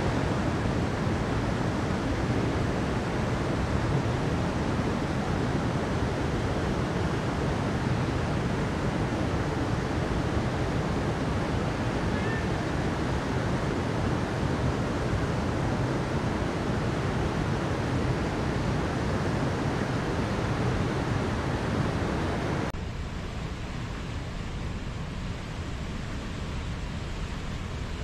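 Steady rush of flowing water over rocks, with no other distinct sounds. About 23 s in it drops suddenly to a quieter, duller rush.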